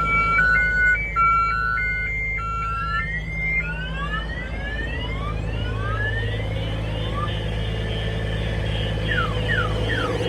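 Aftermarket alarm siren sounding on a 2020 Polaris Slingshot, set off by someone getting into the vehicle. It cycles through a stepped two-tone warble for the first three seconds, then repeated rising whoops, then quick falling chirps near the end.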